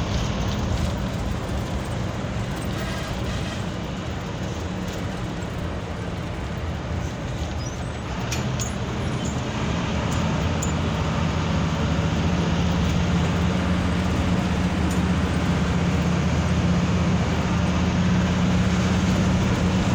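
Bus engine running at speed with steady road and tyre noise, heard from a moving vehicle; the engine hum grows louder from about halfway in.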